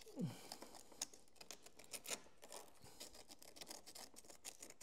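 Sandpaper rubbing on a battery terminal to clean off corrosion: faint, irregular scratching strokes, with a brief falling squeak about a quarter second in.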